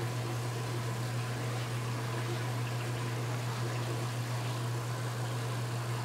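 Electric motor of a DIY mini band saw running steadily, spinning its aluminium drive wheel, with a constant low hum. The running water and pumps of nearby fish tanks give a steady hiss that largely covers the motor.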